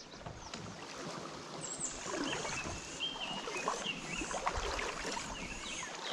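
River water running over a shallow gravel riffle, with short whistled bird calls scattered through it.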